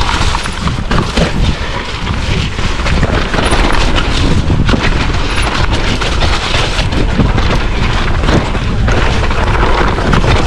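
Wind buffeting the camera microphone and mountain bike tyres rumbling over a rough dirt trail, with frequent knocks and rattles from the bike.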